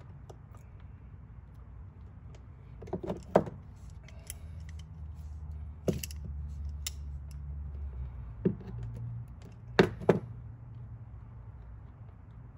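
Sharp clicks and knocks of small tools and wire connectors being handled while two wires are spliced: a cluster about three seconds in, single knocks near six and eight and a half seconds, and a close pair near ten seconds, over a low hum.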